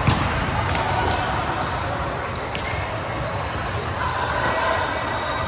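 Volleyball play in a gym hall: one loud smack of a ball being hit just after the start, then a few lighter knocks, over faint players' voices echoing in the hall.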